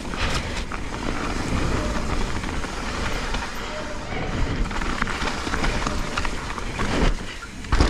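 Mountain bike running fast down a wet, rough trail: a steady rush of tyre noise with the bike rattling over the ground. Near the end there are two heavy thumps as the bike comes down off a rock drop and lands hard.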